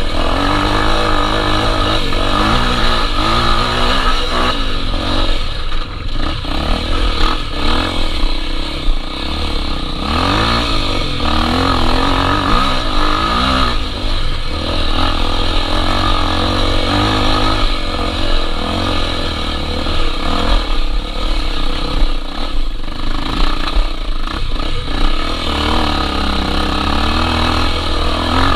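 Honda XR 250 Tornado's air-cooled single-cylinder four-stroke engine running under way, its pitch rising and falling again and again with the throttle.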